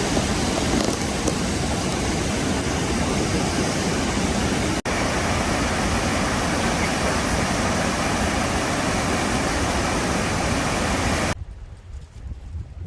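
Steady rush of falling water from a waterfall, loud and even, with a split-second gap about five seconds in; the rush drops away suddenly near the end.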